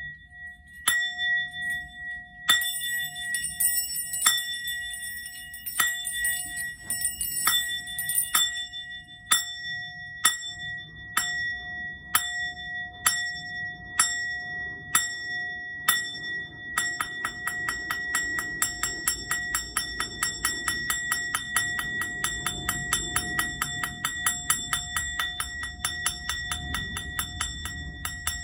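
Metal singing bowl struck over and over with a mallet, each strike ringing on the same high tones. The strikes come about once a second at first, then speed up to several a second after about halfway.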